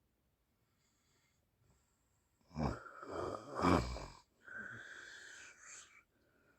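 A sleeping person snoring: near quiet at first, then one loud snoring breath about two and a half seconds in, followed by a quieter, long breathy breath.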